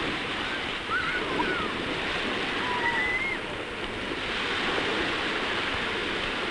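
Steady surf and wind noise of a seashore, with a few short, high, gliding calls over it about one second in and again about three seconds in.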